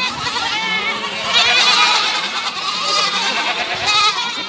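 A large herd of goats and kids bleating all at once: many overlapping calls, with the busiest stretch about one and a half seconds in.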